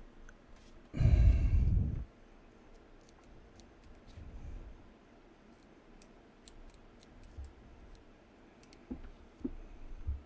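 A loud sigh about a second in, then scattered light clicks and ticks of a titanium mechanical pencil's small parts being handled and screwed together. The threaded parts bind and won't go on smoothly, which the owner suspects is galling or debris in the threads.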